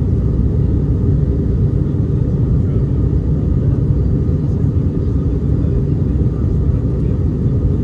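Steady low rumble of engine and airflow noise inside the cabin of an Airbus A319-100 airliner descending on approach.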